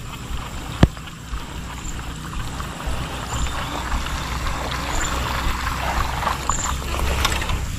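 Steady swishing and trickling of water, with a single sharp click just under a second in and a faint short high chirp repeating about every second and a half.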